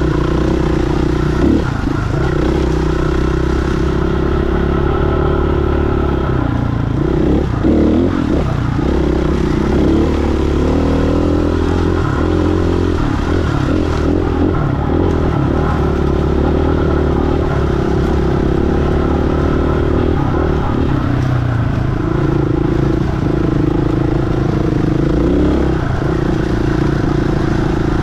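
KTM 500 dirt bike's single-cylinder four-stroke engine running under way at trail pace, mostly steady, with the revs rising and falling a few times about a third of the way in.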